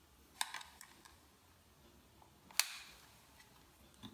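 Small clicks and taps of a screwdriver and thin antenna cables against the open plastic and metal chassis of a ThinkPad T460s laptop: a short cluster about half a second in and one sharper click midway.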